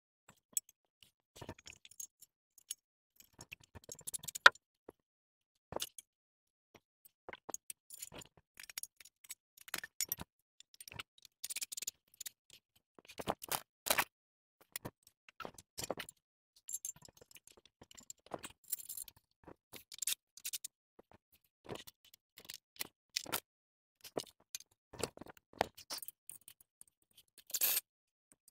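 Scattered clinks, taps and scrapes of a black steel desk frame and its loose screws and fittings being handled during assembly, with a sharper knock about four seconds in and another near the end.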